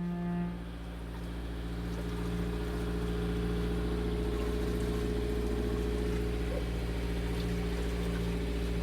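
A boat engine running steadily at an even speed, growing a little louder over the first few seconds.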